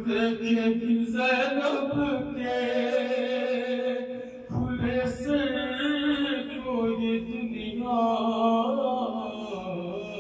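A man's unaccompanied voice singing a slow Urdu devotional lament (a kalam or noha for Imam Hussain), holding long notes with wavering ornaments and pausing briefly for breath twice.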